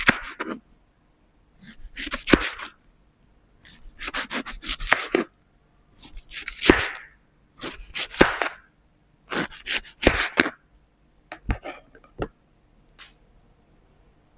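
A knife cutting through a pineapple in about seven separate crunchy strokes, each about a second long, several with a sharp tap; the last one is faint.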